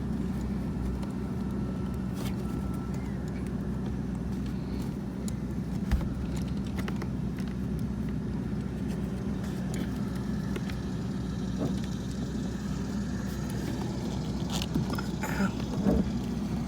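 Small plastic clicks and knocks of clips and connectors being worked loose inside a car door, over a steady low hum. The sharpest click comes about six seconds in, with a few more near the end.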